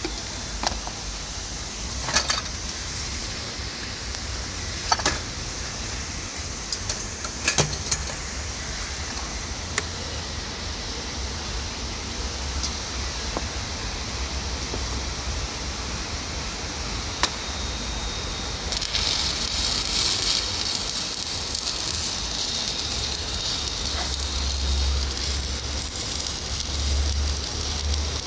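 Stick (SMAW) welding arc struck on a carbon steel pipe joint about two-thirds of the way in, then burning as a steady crackling hiss. Before the arc there is only a duller hiss with a low hum and a few scattered sharp clicks.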